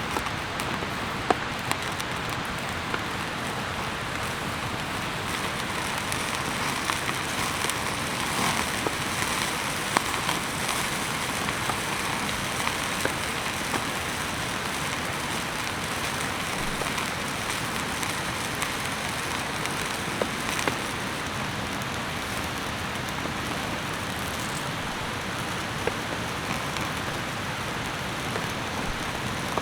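Steady rain falling, an even hiss with scattered sharper drops ticking now and then.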